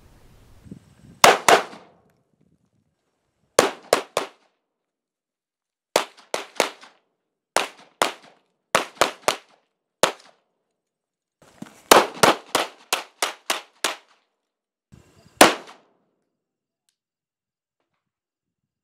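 Pistol shots fired in quick strings of two to eight, each string broken off abruptly by silence, about thirty shots in all, ending with a single shot.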